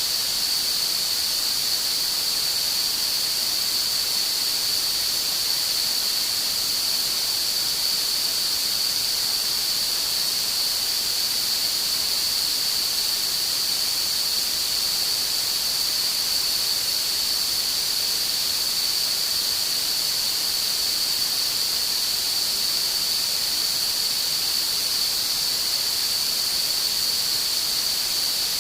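Tinnitus-relief masking sound: a steady, unchanging high hiss with a narrow high-pitched whine running through it.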